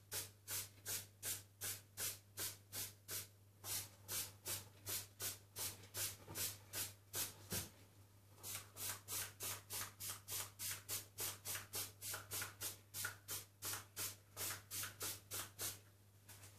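Hand trigger spray bottle from a spray-on chrome kit spritzing in quick repeated squirts, about three a second. There is a short pause about halfway, and the squirts stop near the end.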